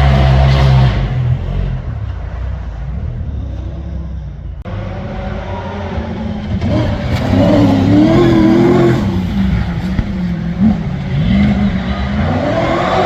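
Off-road competition safari vehicle engine revving hard, its pitch rising and falling with throttle and gear changes. Loud at first, it drops away about a second in, then builds again in the second half.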